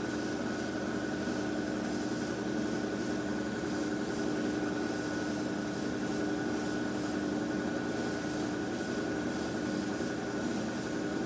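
Steady machine hum at a constant pitch from the airbrush compressor and spray booth fan, under the hiss of air from a Mr Hobby PS-290 fan-cap airbrush spraying primer at about 20 psi.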